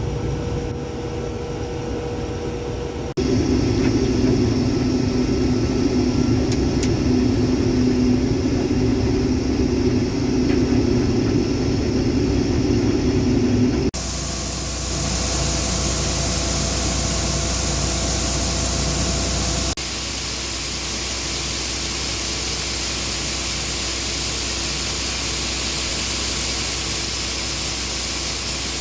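Case IH 2388 combine running steadily during harvest. The machine noise changes abruptly about 3, 14 and 20 seconds in, and the last part carries a strong hiss.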